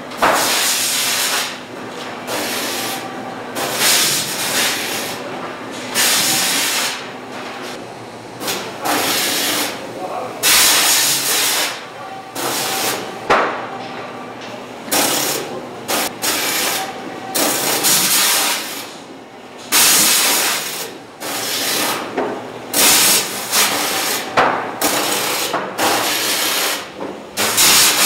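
High-pressure water-jet portion cutter slicing cod fillets on a slatted conveyor, its jets hissing in repeated, irregular sharp bursts. A steady machinery hum runs under the first part.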